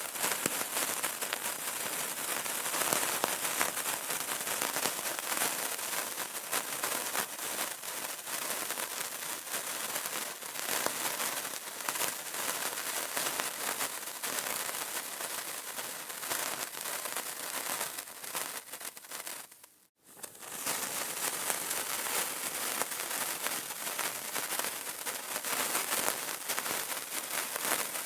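A burning candle crackling: a dense, steady stream of small pops and ticks that briefly fades almost to nothing about twenty seconds in, then comes back.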